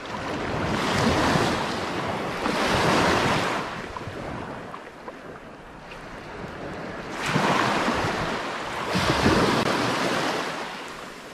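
Gulf of Mexico surf breaking and washing up the beach. It swells and fades in four surges, two early and two late, with a lull between them.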